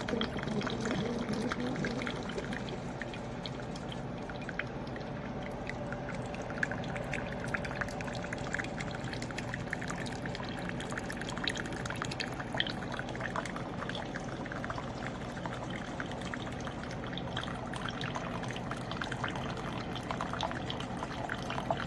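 Ninja Pods & Grounds single-serve coffee maker brewing: a steady stream of liquid running into the cup with a continuous crackling patter.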